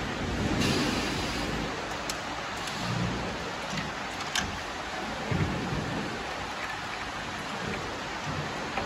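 Insulated glass production line machinery running with a steady hiss, with a few light clicks and some low knocks scattered through it.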